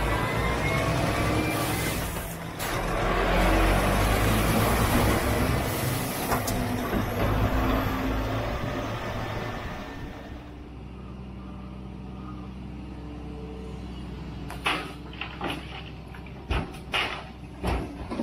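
Scania R440 tipper truck's 13-litre straight-six diesel running on the road, with heavy wind and road noise from an outside-mounted camera. About ten seconds in it cuts to a quieter steady engine hum from a wheeled excavator, and near the end a series of sharp knocks as rubble is loaded into the steel tipper body.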